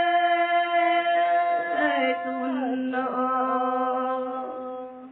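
Two women singing a Red Dao folk song (hát lượn) in long held notes, with no accompaniment: one high note held, then a slide down about a second and a half in to a lower note that is held until the song stops near the end.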